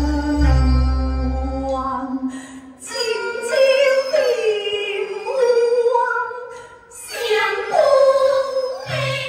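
Teochew opera singing: sustained accompaniment tones over a deep bass for about two seconds, then a woman's amplified voice sings long, sliding phrases with a wavering pitch, with brief breaths between them.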